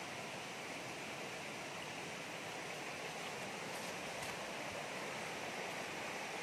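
Steady rush of a rocky forest stream flowing over stones.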